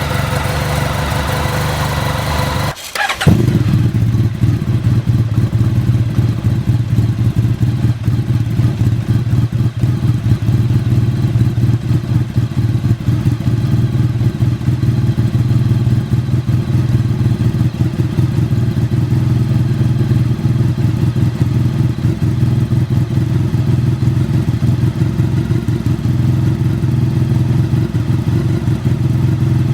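Honda VFR1200F's V4 engine idling steadily through an open aftermarket DAM exhaust pipe, a loud, low, pulsing exhaust note. About three seconds in, the sound breaks off for a moment and returns with a sharp loud blip, lower and fuller than before.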